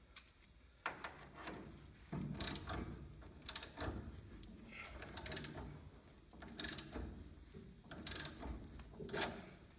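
A ratchet wrench turning the drive screw of a ball joint press that is pressing out a truck's lower ball joint: repeated bursts of ratchet clicking, roughly one stroke every second or so, with the screw under heavy tension.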